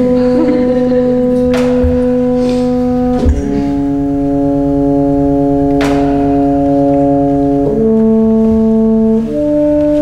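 Slow music of long, steady held notes over a constant low drone, the notes changing pitch about three seconds in, again near eight seconds and once more near nine seconds.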